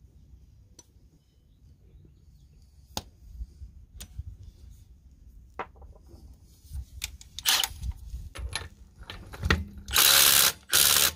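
A few scattered clinks and knocks, then a Milwaukee M18 Fuel Gen 3 impact driver hammering loudly in two short bursts near the end as it works a 21 mm lug nut torqued to 100 ft-lb, breaking it loose with ease.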